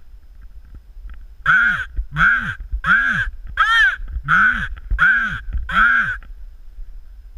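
Seven loud, harsh raven caws in an even series, about three every two seconds; the fourth is higher-pitched than the rest.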